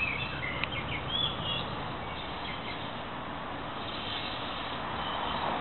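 Small birds chirping and whistling in short calls, mostly in the first two seconds, over a steady even background noise.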